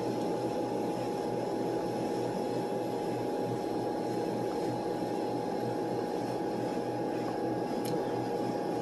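Steady room hum and hiss with a constant high-pitched tone running through it, and one faint click about eight seconds in.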